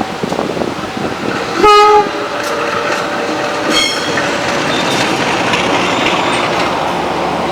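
Diesel locomotive hauling a passenger train: a short, loud horn blast about two seconds in, then a shorter, higher-pitched toot, over the steady rush of the passing train and its wheels on the rails.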